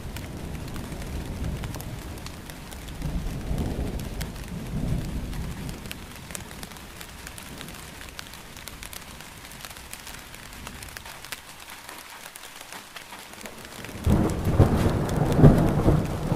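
Steady rain pattering, with thunder rumbling low a few seconds in. After a quieter spell, a louder peal of thunder breaks suddenly near the end and rolls on.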